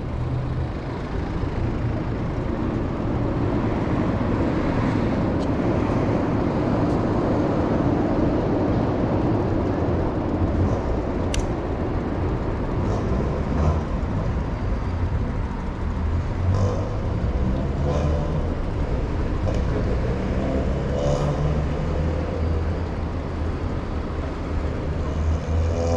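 City street traffic running alongside, mixed with the steady low rumble of a bicycle rolling over sidewalk paving. There is one sharp click about eleven seconds in.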